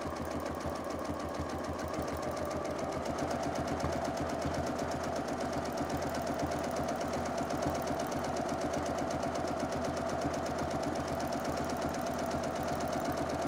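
Domestic sewing machine running steadily while free-motion quilting, the needle stitching at a rapid, even rate over a steady motor hum.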